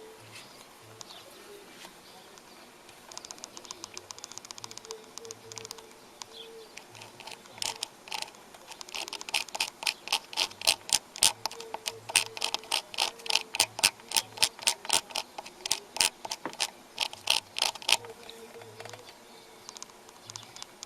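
A run of sharp mechanical clicks, about three or four a second, lasting some ten seconds from about seven seconds in, with fainter, quicker ticking a few seconds earlier.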